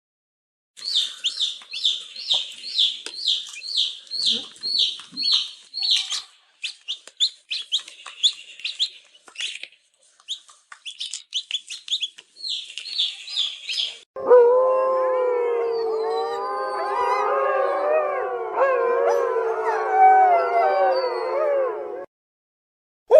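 Rapid high chirps repeating about twice a second, with some pauses, for roughly the first half. These are followed by a pack of wolves howling together in a chorus of overlapping rising and falling howls, which cuts off shortly before the end.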